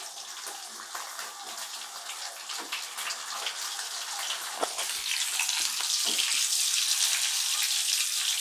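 Vanjaram (seer fish) steaks shallow-frying in hot oil, a steady sizzle with many small crackles and pops as a wooden spatula turns them. The sizzle grows louder about five seconds in.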